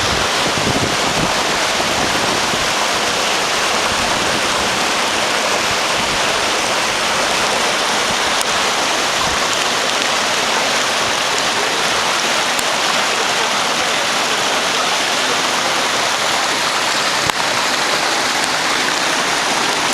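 Floodwater rushing in a loud, steady torrent.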